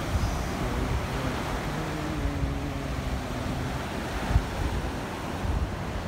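Small ocean surf breaking and washing up a sandy beach, with wind buffeting the microphone in low gusts. A faint steady low hum sits under the surf for a couple of seconds in the middle.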